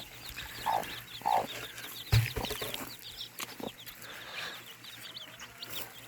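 Chickens clucking in a farmyard, two short clucks in the first second and a half, over a constant chatter of quick high chirps. A sharp thump about two seconds in is the loudest sound.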